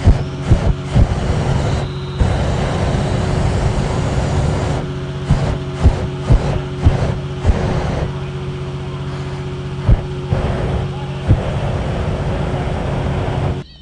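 A small engine running steadily, with a dozen or so sharp knocks scattered through it. It cuts off abruptly near the end.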